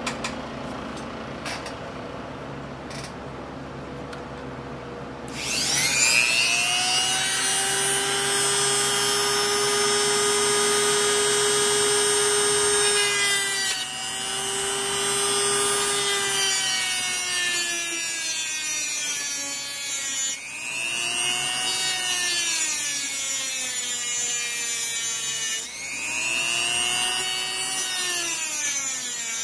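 A high-speed grinding tool spins up about five seconds in and whines steadily. Its pitch sags and recovers several times as it bites into the end of a thin steel spoke rod, throwing sparks.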